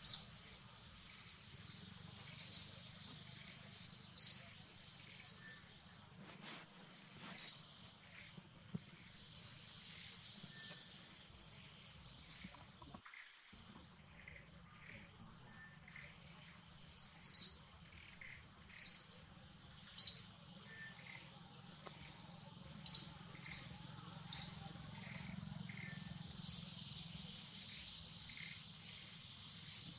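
Forest birds chirping: short, sharp, high calls repeating irregularly every second or two, several in quick succession around the middle and later on, over a steady high-pitched drone.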